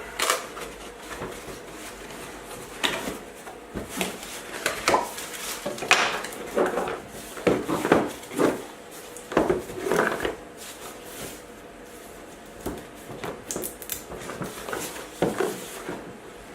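A retail box being handled and worked open: irregular knocks, scrapes and rustles.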